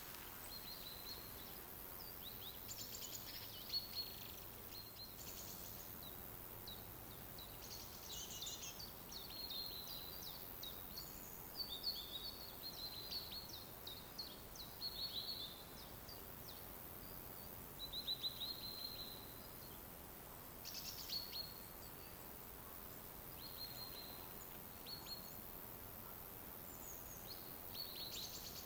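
Small songbirds chirping and trilling in a forest, with short calls and quick trills coming every second or few over a faint steady hiss.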